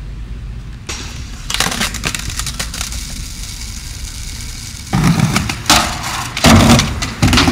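Skateboard grinding along a low metal rail, a rough scraping noise. From about five seconds in, a board grinding the edge of a ledge, with several loud clacks of the wheels and deck hitting wooden decking.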